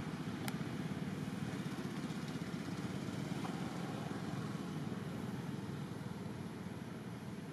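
Steady low outdoor background rumble with no clear source, and a single sharp click about half a second in.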